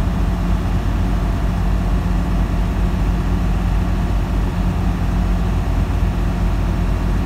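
Steady drone inside a semi-truck's cab at highway speed: the diesel engine's low hum with road noise over it.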